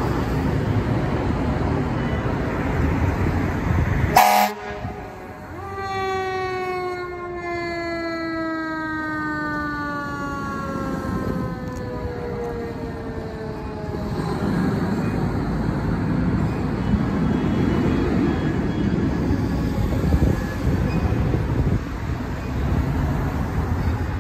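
Fire engine responding: a short, loud horn blast about four seconds in, then its siren winding down in one long falling wail over about eight seconds. Engine and street traffic noise run underneath throughout.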